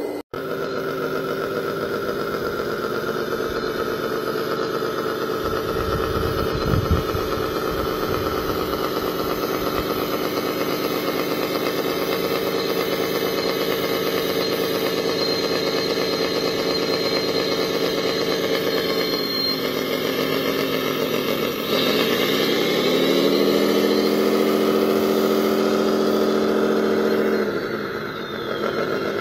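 Engine sound of a radio-controlled wheel loader, running steadily. About two-thirds of the way through it falls away, then revs back up and runs louder, and it drops again near the end.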